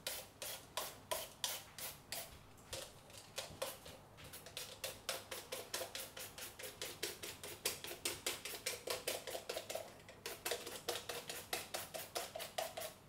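An unripe green papaya being shredded into thin strands with a hand-held papaya shredder: quick, repeated scraping strokes, about three to five a second. There is a brief pause about ten seconds in, and the strokes stop just before the end.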